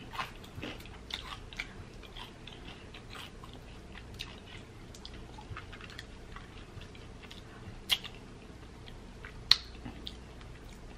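A person chewing a mouthful of pot pie crust close to the microphone, with many small mouth clicks and crackles. Two sharper clicks come near the end.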